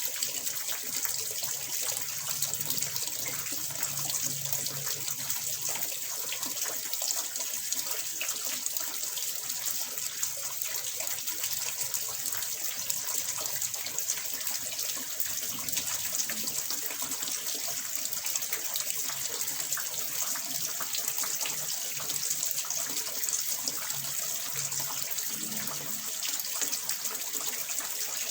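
Water falling steadily into a fish pond, a continuous splashing with fine flickering detail.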